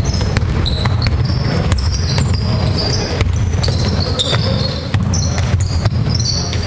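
A basketball bouncing on a wooden gym floor during play, with repeated sharp knocks and short high squeaks of sneakers on the court over a steady low hall rumble.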